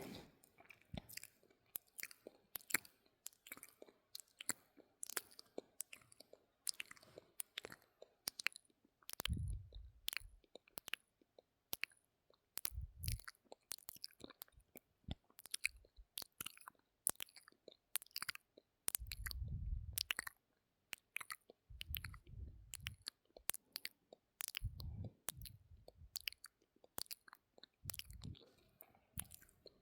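Close-miked ASMR mouth sounds: a steady run of sharp, wet tongue clicks and lip smacks, about two a second, with a few short low muffled sounds among them.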